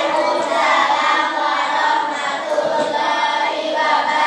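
A group of voices singing together, holding notes and moving between them.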